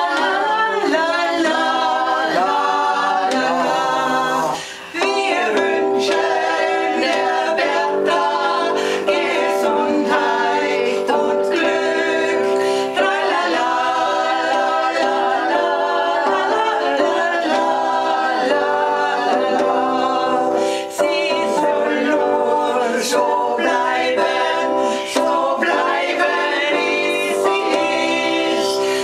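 A small group of women singing a birthday serenade together, accompanied on an electronic keyboard, with sustained held notes under the voices.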